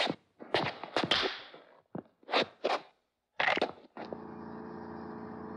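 A stage microphone and stand, lying on the floor, scraping and clattering in several short bursts. About four seconds in, a steady hum with several tones starts and runs until near the end.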